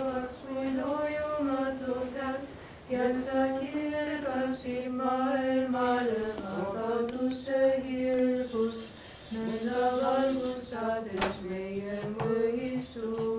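Orthodox liturgical chant: a slow sung melody on long held notes, with two short breaks between phrases, about three and about nine seconds in.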